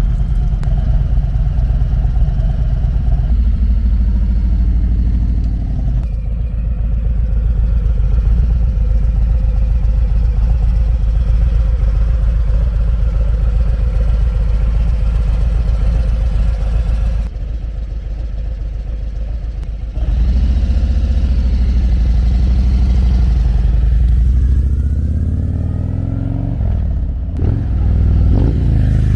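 Harley-Davidson Street Glide's Milwaukee-Eight V-twin running through Screamin' Eagle slip-on mufflers, a deep, smooth exhaust note that is not raspy. It eases off a little past halfway, then pulls harder, with revs rising and falling near the end.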